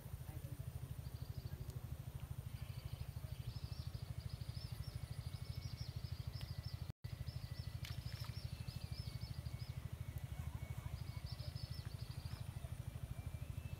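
Outdoor rural ambience: birds chirping high over a steady low hum that pulses rapidly, about seven times a second. The sound drops out for an instant about halfway through.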